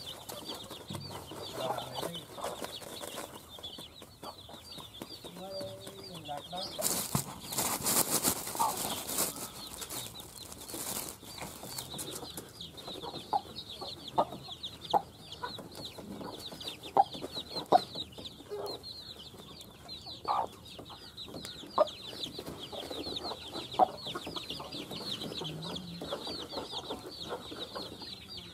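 Chicks peeping rapidly and continuously, with a hen's occasional low clucks and sharp taps of beaks pecking on the sack mat. About seven seconds in, a few seconds of loud rustling noise.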